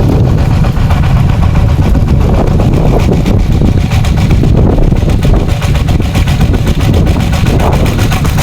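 Water-pump engine running steadily at a constant speed, pumping out a pond.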